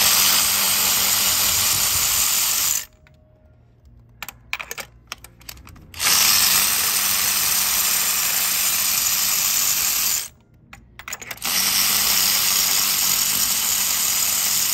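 Red cordless electric ratchet running on a spark plug socket, unscrewing the spark plugs. It runs in three long spurts of a few seconds each, with a few light clicks of the tool and socket in the pauses between.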